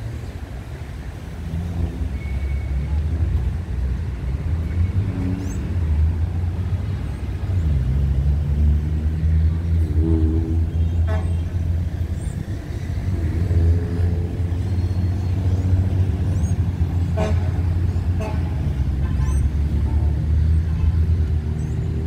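City road traffic, dominated by a steady low engine drone from a nearby vehicle. Its pitch dips and shifts a couple of times as the engine changes speed. A few short high tones are heard above it.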